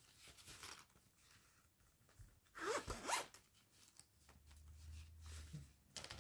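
Zipper on a fabric knitting-needle storage case being pulled open, in short faint rasps with some handling of the fabric case.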